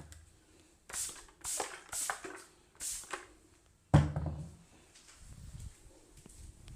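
Head massage: a run of five or six quick brushing strokes, then one loud thump about four seconds in.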